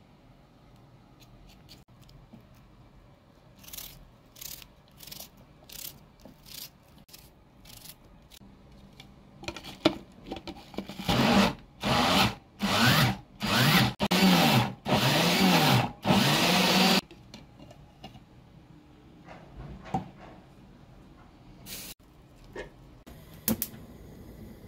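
Electric mini food chopper pulsed about six times to chop onion wedges with ground walnuts. The motor whirs in short bursts, the last held longest, after a series of light clicks and knocks.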